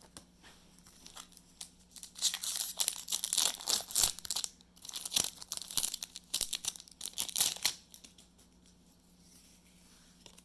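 Foil wrapper of a Yu-Gi-Oh! booster pack being torn open and crinkled, in two spells of crackly rustling: one starting about two seconds in and one a few seconds later.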